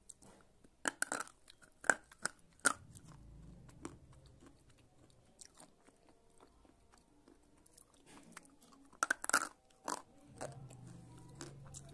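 Slate pencil bitten and chewed up close: sharp crunching snaps as pieces break off between the teeth, a few about one to three seconds in and another cluster near the end, with softer chewing between.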